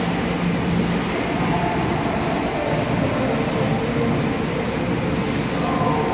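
Steady rumbling background noise of an indoor swimming pool hall, with soft swells of splashing from swimmers doing breaststroke.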